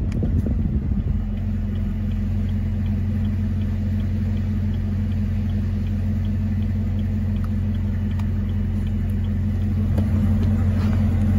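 The 2019 Camaro ZL1's supercharged 6.2 L V8 idling steadily, heard from inside the cabin as a low hum. Over it, from about a second in until near the end, comes the faint regular ticking of the hazard-light flasher, a few clicks a second.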